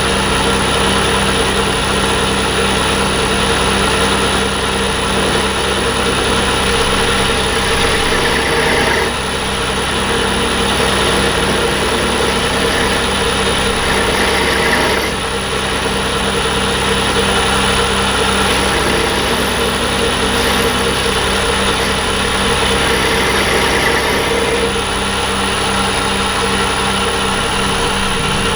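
Metal lathe running steadily under power, a motor hum with a high whine over it, dipping briefly twice as the work goes on.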